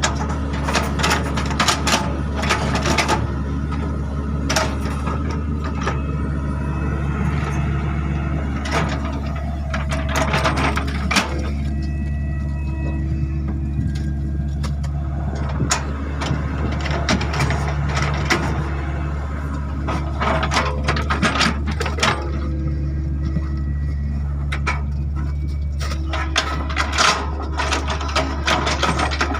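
Hydraulic excavator's diesel engine running steadily under load, with repeated bursts of clattering and knocking as the machine works.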